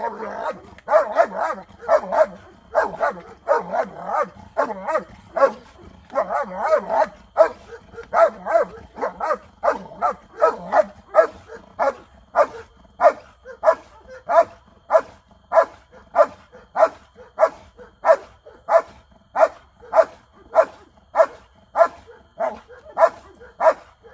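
German shepherd barking steadily, about two barks a second, holding a decoy at bay in a bark-and-hold during protection training.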